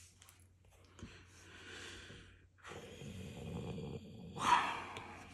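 A man breathing close to the microphone: a few soft breaths, then a louder exhale like a sigh about four and a half seconds in.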